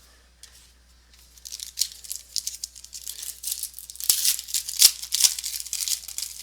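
Crinkling and tearing of a trading-card pack wrapper being opened, a dense run of rustling with a few sharp crackles.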